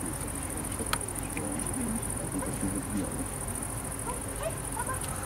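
Insects trilling steadily in the grass, a high-pitched, fast-pulsing buzz, with a single click about a second in.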